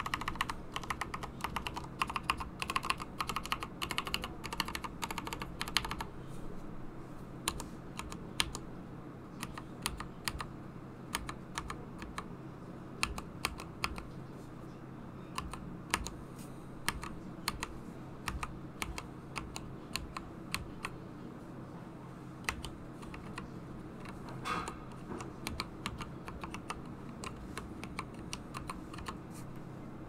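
Tempest Kirin Monarch mechanical keyboard being typed on. There is fast two-handed typing for about the first six seconds, then slower, separate keystrokes.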